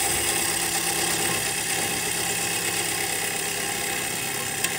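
Milling machine spindle running and driving an annular cutter slowly down into a metal plate: a steady mechanical whir with a thin high whine over it, and a single click near the end.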